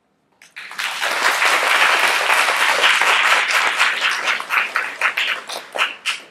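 Audience applauding. The applause starts about half a second in, quickly becomes a dense steady clapping, and thins into scattered separate claps near the end.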